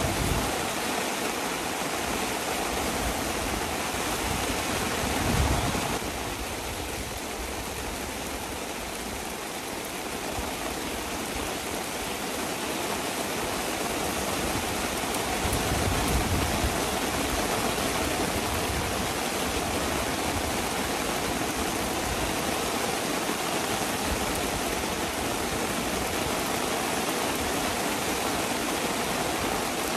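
Heavy rain falling, a steady dense hiss that eases a little for several seconds after about six seconds in and then builds again, with a brief low rumble twice.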